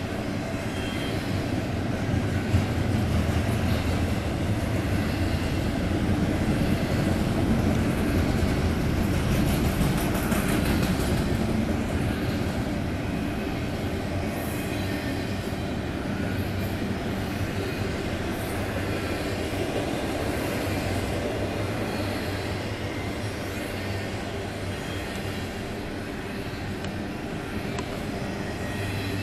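Double-stack intermodal freight train's well cars rolling past steadily: the continuous rumble of steel wheels on the rails, a little louder for a few seconds early in the passage.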